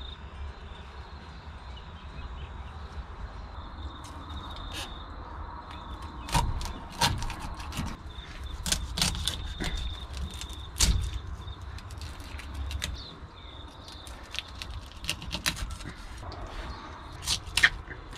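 A knife working through a skipjack tuna on a wooden cutting board: scattered sharp knocks and scrapes as the blade and the fish are handled. A low steady rumble sits under them and stops about two-thirds of the way through.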